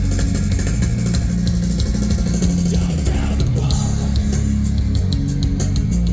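Live rock band playing a song: electric guitar, bass and drum kit, heavy in the low end.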